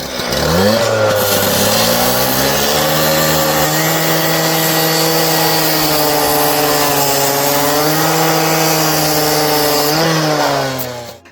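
Concrete saw revving up, then running at high speed as its blade cuts through the copper-wound crown of a scrap electric motor, its pitch sagging slightly at times under load, before it winds down near the end.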